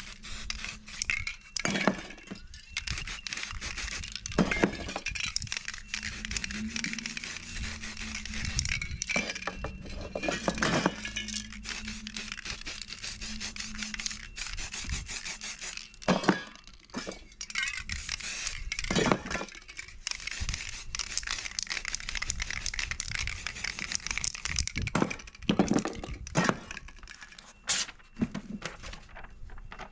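Aerosol spray-paint can hissing in repeated bursts, broken by sharp clicks and knocks, with a few louder knocks along the way.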